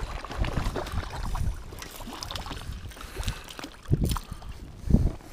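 Close handling noise on a kayak: jacket, glove and fishing gear rubbing and ticking against a chest-mounted camera while a fish is reeled in, with a low rumble and two heavier thumps about four and five seconds in.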